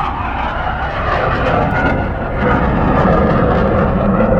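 F/A-18 fighter jets taking off, their jet engines making a loud, dense rush that grows heavier in the low end about two and a half seconds in.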